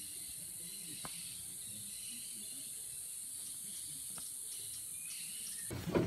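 Steady, high-pitched drone of a rainforest insect chorus, with a few faint bird chirps and a couple of soft clicks. Near the end it cuts off and louder clattering takes over.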